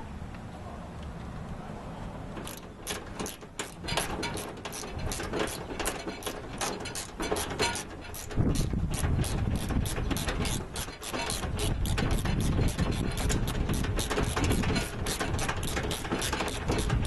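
Hand ratchet wrench clicking in a long, fast run as it drives the body-panel screws tight. From about eight seconds in, a heavier low rumble of handling noise runs under the clicks.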